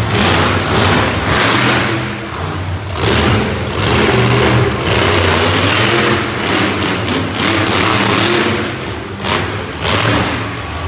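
Monster truck engine revving hard in repeated bursts as the truck climbs over and crushes a car, with loud rises and short dips in the throttle.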